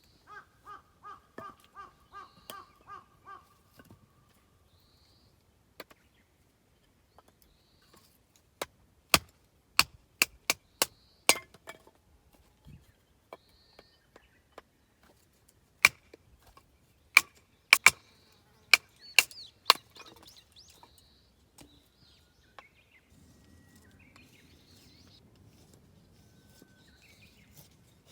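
Wood being chopped: about fifteen sharp, irregular knocks, the loudest sounds here, through the middle of the clip. At the start a bird gives a run of about eight evenly spaced pitched calls, and small birds chirp faintly throughout.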